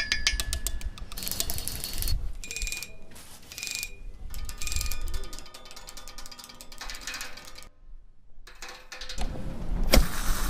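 A run of small mechanical object sounds: rapid ratchet-like clicking at first, three short high dings a little over a second apart, then rattling, and a louder noisy stretch with a sharp knock near the end.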